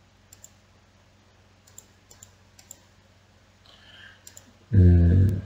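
A few faint, scattered clicks, like a computer mouse clicked while moving between presentation slides, over a low steady hum. Near the end comes a short, loud voiced hum from a man, about half a second long.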